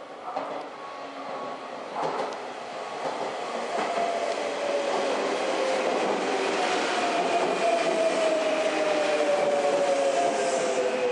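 Sagami Railway electric commuter train pulling into a station platform and passing close by, its running noise growing louder as it nears, with a clack about two seconds in. From about four seconds a whine from the traction motors falls slowly in pitch as the train brakes to a stop.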